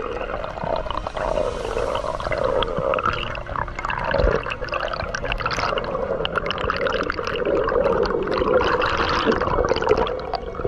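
Underwater sound picked up by a camera in its housing: water rushing and bubbling around it as the diver swims, with a steady crackle throughout.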